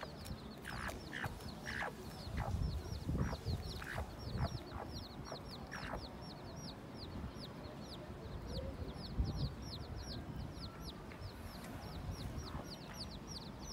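Young chicks peeping all through, a steady stream of short, high, falling peeps, with the mother hen giving low clucks, mostly in the first half.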